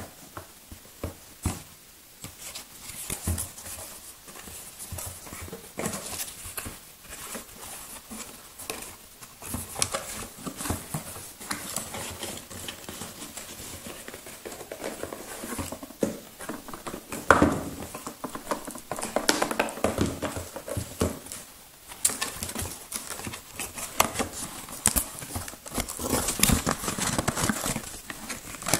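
Packaging being handled and opened by hand: irregular rustling, scraping and tapping, with louder bursts of handling now and then.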